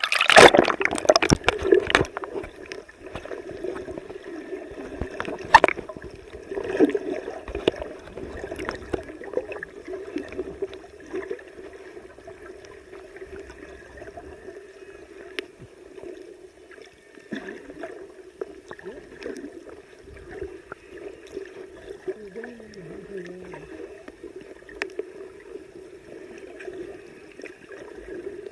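Sea water sloshing and gurgling close to the microphone as the camera is held in the surf. There are loud splashes in the first two seconds and another about five and a half seconds in, then a steadier gurgle.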